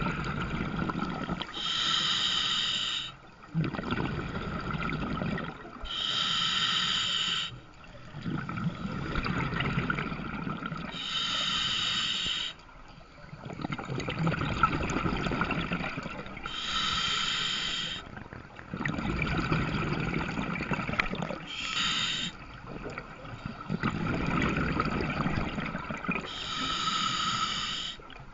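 Scuba diver breathing through a regulator underwater, about six slow breaths. Each is a short hissing inhale through the demand valve followed by a longer rumble of exhaled bubbles.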